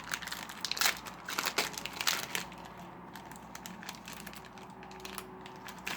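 Foil wrapper of a Yu-Gi-Oh booster pack crinkling as it is torn open and handled: a run of sharp crackles in the first couple of seconds, then quieter rustling.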